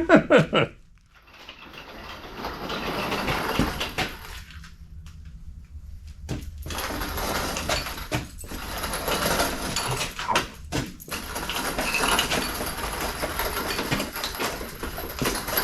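Metal parts and tools clinking and clattering as they are handled, in two spells of busy, irregular clicks with a quieter pause between them.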